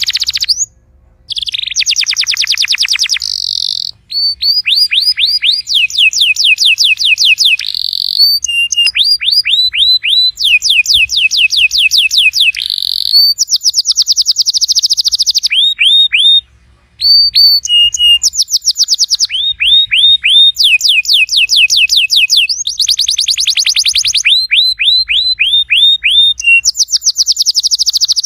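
Domestic canary singing: loud, fast trills, each phrase a rapid run of repeated down-sweeping notes, phrase after phrase with only brief pauses.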